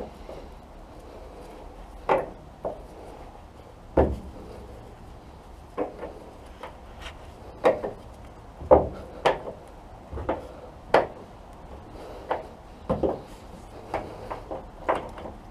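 Irregular knocks and clicks, about fifteen, some much louder than others, as a spanner is worked stroke by stroke on a very tight, long-seized fastener.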